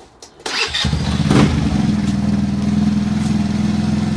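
GY6 four-stroke single-cylinder scooter engine, with an aftermarket drift-pipe exhaust, starting about half a second in and then idling steadily.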